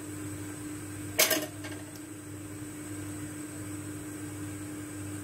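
Steady low machine hum, with one short sharp crack about a second in.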